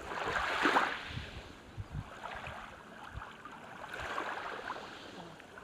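Small sea waves washing onto a beach, the hiss swelling twice, first just under a second in and again around four seconds in, with low rumbles of wind on the microphone.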